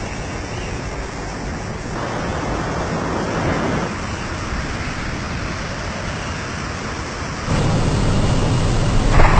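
A steady rush of airflow and a light aircraft in flight, with no clear engine tone. It steps up in level about two seconds in and again near the end.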